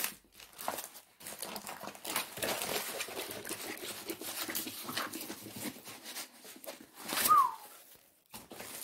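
Plastic-covered diamond painting canvas rustling and crinkling as it is rolled up by hand, with a short high squeak falling in pitch about seven seconds in.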